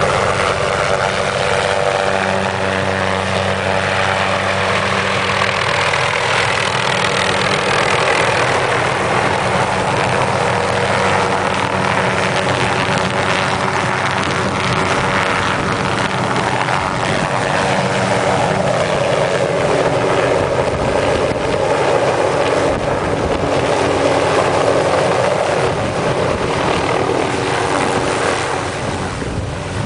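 Hughes 500 helicopter's turbine engine and rotor running loud and steady, with slight shifts in pitch in the second half.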